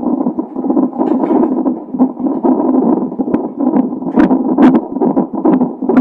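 Fetal heartbeat heard through a Doppler ultrasound heart-rate monitor: a steady, pulsing whoosh, with a few sharp clicks in the second half.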